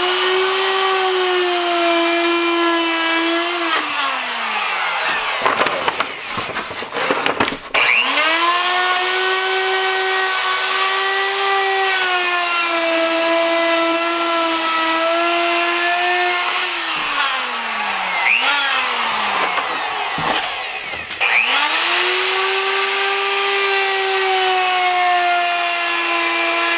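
Electric router with a bearing-guided side-cutter bit trimming overhanging Formica laminate flush with the countertop edge. It gives a high, steady whine that spins up at the start, winds down after a few seconds, starts again about 8 seconds in and 21 seconds in, and gives a brief short burst in between.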